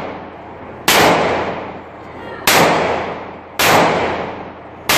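30 bore (7.62×25 mm Tokarev) pistol fired into the air in single shots, four sharp cracks about a second to a second and a half apart. Each crack is followed by a long echo that is still fading when the next shot comes.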